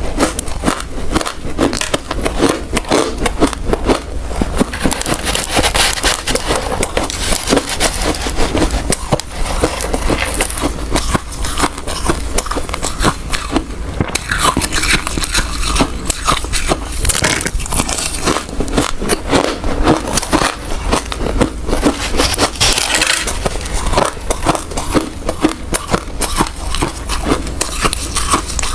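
Hard ice being bitten and chewed close to the microphone: a dense, continuous run of loud crunches and crackles.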